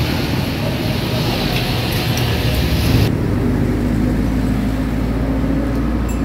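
Steady street traffic noise. About three seconds in, the high hiss drops away and leaves a lower, steady engine hum.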